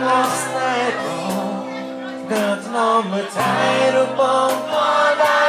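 Live music with a singer over a steady drum beat, played loud.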